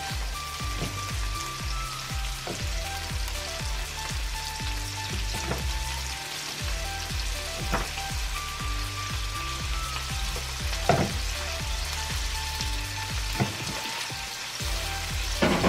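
Raw shrimp sizzling in hot vegetable oil in a nonstick frying pan, a steady frying hiss with a few sharp knocks against the pan. Background music with a steady low beat plays underneath.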